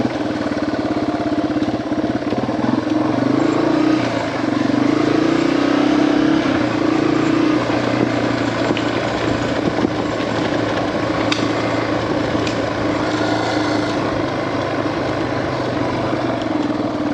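Yamaha TW200's single-cylinder four-stroke engine running as the bike rides along, at a fairly steady engine speed with small changes in pitch.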